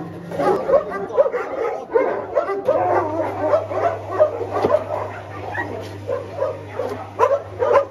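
Many dogs barking and yelping together in a dense chorus of short, high calls, several a second. A steady low machine hum comes in about three seconds in.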